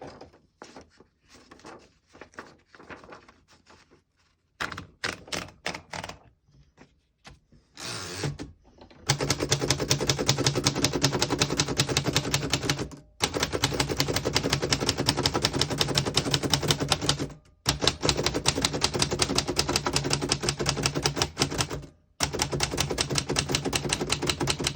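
A 1933 Royal P portable typewriter: a few scattered clicks and knocks at first, then about nine seconds in, rapid, steady typing of keystroke after keystroke, broken by short pauses three times.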